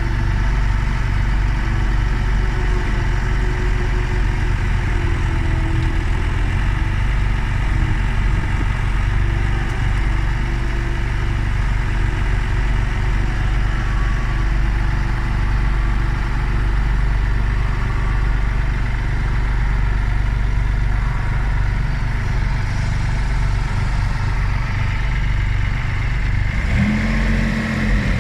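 Diesel engine of a compact earthmoving machine running steadily, then revving up near the end.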